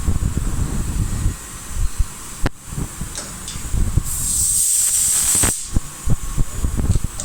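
CNC machine running with a faint steady high-pitched whine, over low rumbling and scattered knocks. About four seconds in, a loud hiss lasts about a second and a half.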